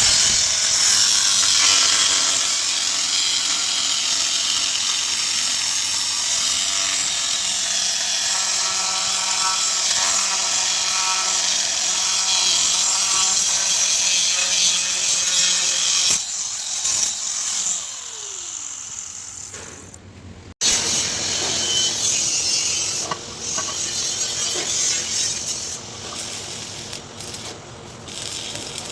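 Angle grinder grinding or cutting metal with a loud, steady hiss and whine. Its pitch sags around seventeen seconds in, and the sound breaks off sharply about twenty seconds in before carrying on.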